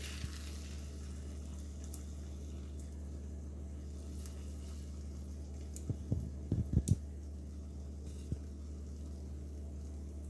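Stir-fried noodles being handled in a wok with metal tongs and a plate over a steady low hum, with faint clicks and a short cluster of knocks about six to seven seconds in.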